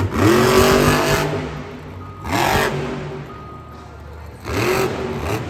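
Monster truck engine revving in three bursts about two seconds apart, each rising in pitch.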